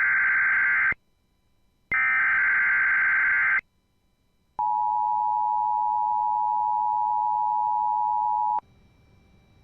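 Emergency Alert System alert opening: two buzzy, warbling SAME digital header bursts, each separated by silence, followed by the steady two-tone EAS attention signal held for about four seconds. After the tone stops, only a faint hum remains.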